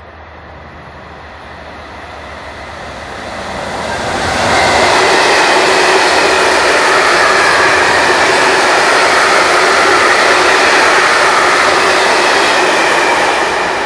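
Freight train of tank wagons passing on the main line: the rumble of wheels on rail grows louder as the train approaches. From about four seconds in, the wagons roll past close by with a loud, steady rush that cuts off abruptly near the end.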